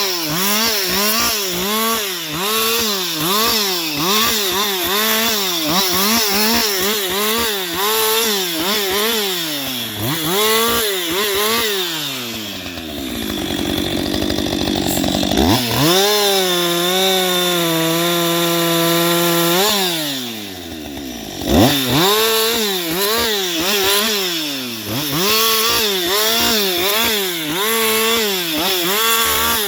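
Husqvarna 560XP two-stroke chainsaw cutting into a tree, its engine pitch rising and falling in a steady rhythm. About halfway through it drops to a low rough note, revs at a steady high pitch for a few seconds, falls back briefly, then returns to the rhythmic rise and fall as cutting resumes.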